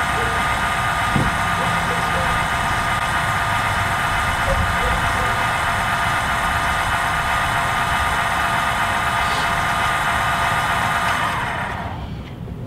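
Electric tongue jack on an R-pod travel trailer, its motor running with a steady whine as it retracts and lowers the trailer tongue onto the hitch. It winds down and stops about a second before the end.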